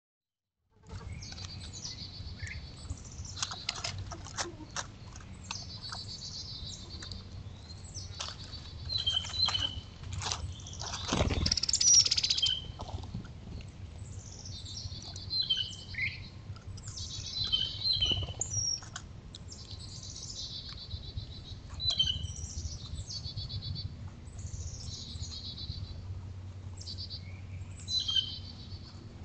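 Wild songbirds chirping and calling in short repeated phrases, with a steady low hum beneath. About eleven seconds in, a louder burst of noise lasts a second or so.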